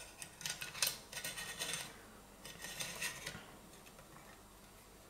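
Light metallic clicks and scrapes as a stainless-steel Jetboil Pot Support is handled and fitted onto the burner head of a Jetboil Flash stove, dying away after about three and a half seconds.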